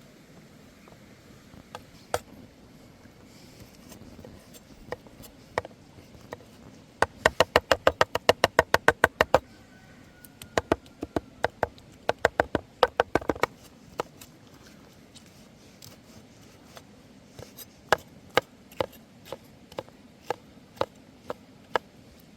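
Knife chopping on a wooden board: a few single knocks, then a fast even run of about six strikes a second for a couple of seconds, a second run shortly after, then slower scattered strikes near the end.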